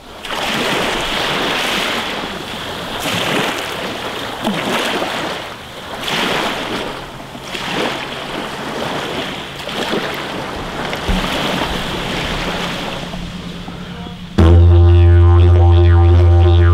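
Waves washing onto a beach, swelling and falling every second or two. About fourteen seconds in, this cuts suddenly to a loud, steady, deep didgeridoo drone.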